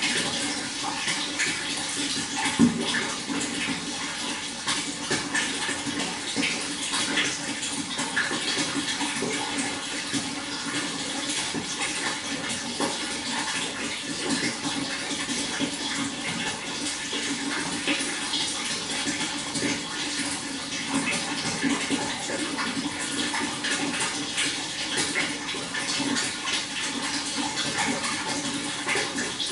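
Running water splashing and trickling steadily, with one brief sharp knock about two and a half seconds in.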